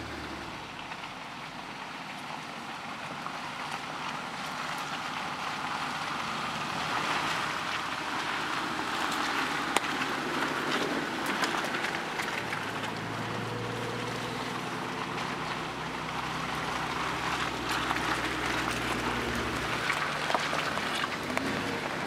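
Jeep Wranglers crawling along a dirt forest trail: engines running at low speed under a steady noise of tyres rolling over leaves and twigs, with scattered crackles. A low engine hum comes in strongly about halfway through as a Jeep draws close.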